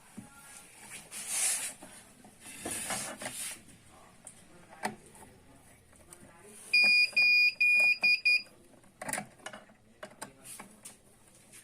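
Rustling and clicking of hands handling wires and terminals, with a quick run of about six short, high-pitched electronic beeps about seven seconds in, the loudest sound.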